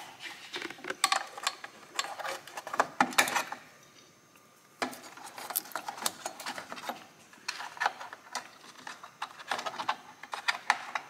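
A hand tool clicking and scraping against a plastic protective cover and the metal of a car's rear suspension knuckle: many small irregular clicks, with a short lull about four seconds in.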